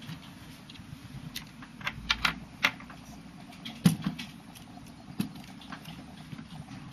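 Irregular light clicks and taps of small plastic parts being handled as the cleaved fiber in its holder is moved from the cleaver and seated in the fusion splicer. The loudest click comes about four seconds in.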